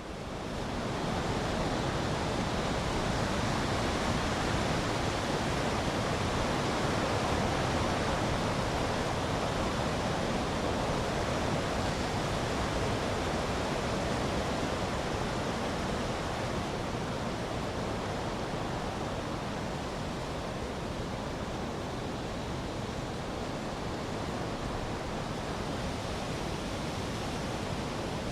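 Storm noise: a steady, even rush of heavy rain and wind with no separate impacts.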